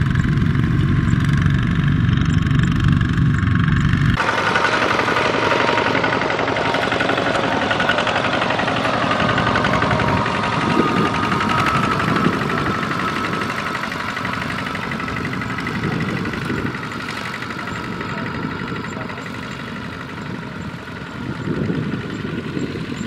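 Single-cylinder diesel engines of Kubota two-wheel walking tractors running as they pull loaded trailers. About four seconds in the sound changes suddenly from a deep, even drone to a higher, busier engine noise.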